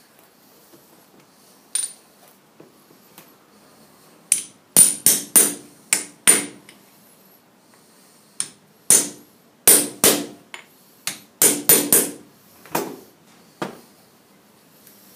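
Hammer tapping a rubber shaft seal into an aluminium bearing housing: one light knock, then about sixteen sharp metallic taps in quick bursts of two to five, each with a brief bright ring.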